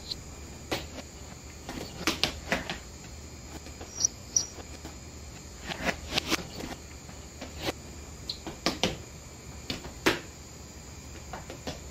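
Irregular taps and knocks from dancers moving and stepping on the floor, some in quick clusters, over a steady low hum. A brief high double chirp comes about four seconds in.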